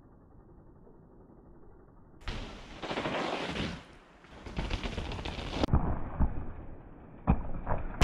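2010 NS Surge steel mountain bike landing a jump and riding off over a dirt trail: tyre noise on the dirt with many sharp knocks and rattles from the bike. It is muffled and quiet for the first two seconds and turns loud about two seconds in.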